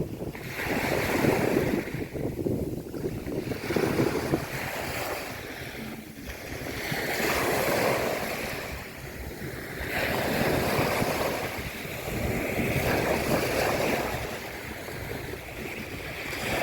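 Sea waves washing onto a beach, the surf swelling and falling back every few seconds, with wind buffeting the microphone.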